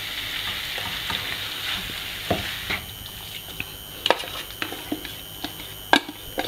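Tomato-onion masala sizzling in a frying pan as boiled white peas are tipped in from a steel bowl. The sizzle dies down after about two and a half seconds, followed by several sharp clicks of the spatula and bowl against the pan.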